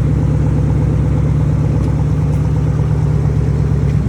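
A 2011–2014 Dodge Charger's engine idling steadily and loudly just after a cold start.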